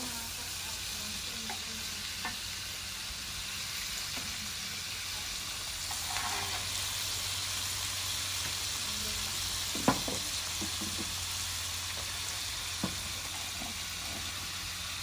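Shrimp, squid and diced carrots sizzling steadily in a nonstick wok while a wooden spatula stirs them, with a few sharp knocks, the loudest about ten seconds in.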